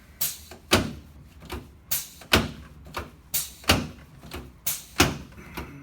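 A series of sharp knocks and thumps against a chiropractic treatment table, mostly in pairs about every second and a half.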